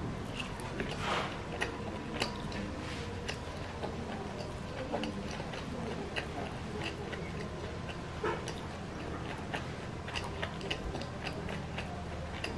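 A person chewing a mouthful of food with the mouth closed, close to the microphone: a steady run of small, irregular mouth clicks.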